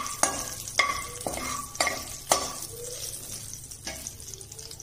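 A metal slotted spoon knocks and scrapes against a metal kadai while stirring whole spices, a green chilli and bay leaves frying in hot oil (the tempering stage). Six quick knocks come in the first two and a half seconds and one more near the end, each with a short metallic ring. A light sizzle of oil runs under them and fades.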